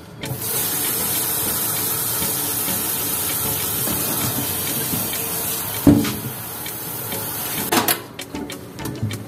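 Kitchen tap running steadily into a stainless steel sink while blanched duck pieces are rinsed in a steel pot, with a single metal clunk about six seconds in. The water stops about eight seconds in, followed by a few light knocks of metal cookware.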